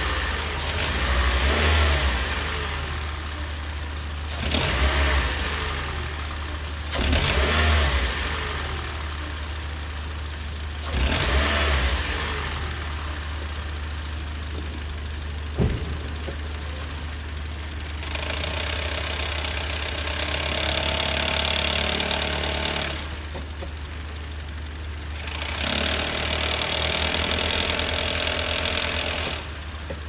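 Toyota Yaris engine revved in four short blips, its pitch rising and falling each time, carrying the noise of a failing drive belt tensioner. Past the middle there is a single sharp click, then two longer, harsher stretches of engine sound a few seconds each.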